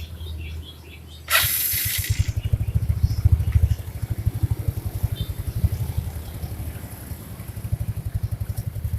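A first-generation Yamaha Mio scooter's single-cylinder engine starts about a second in with a brief loud hissing burst, then idles with an even, rapid putter. It is being run as a test after the kick-starter shaft was reset so that it no longer rubs in the CVT area.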